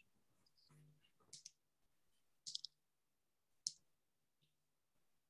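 Near silence with a few faint, short clicks spread through it.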